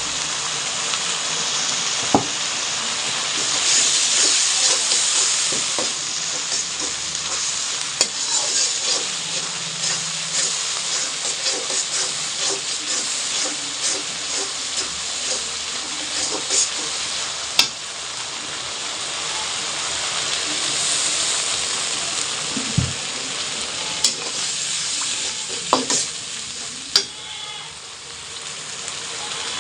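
Food sizzling as it fries in hot oil in a pan, stirred with a spatula, with a few sharp clinks of the utensil against the pan.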